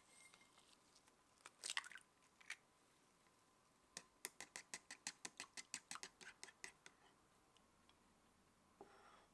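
Wooden chopsticks clicking rapidly against a ceramic bowl as an egg is beaten, about six sharp clicks a second for some three seconds. A short scraping rustle comes shortly before, just under two seconds in.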